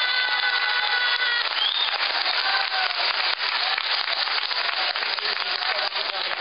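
Audience in a meeting hall clapping loudly and continuously, with a voice calling out over it in the first second or so.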